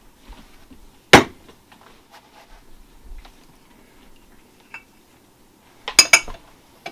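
Aluminum bait mold halves knocking and clanking as the freshly poured mold is opened: one sharp knock about a second in, a light metallic tink near the middle, and a quick cluster of clanks near the end as a half is set down on the bench.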